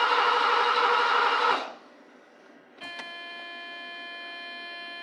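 Mercedes-Benz 560SL's M117 V8 being cranked by the starter without firing; the ignition is giving no spark. The cranking stops suddenly about a second and a half in, and after a short quiet gap a steady tone of several pitches sets in near the three-second mark.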